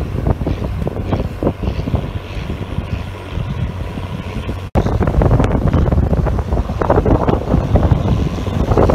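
Wind buffeting the microphone, a loud gusty rumble. It cuts out for an instant about halfway through and comes back louder.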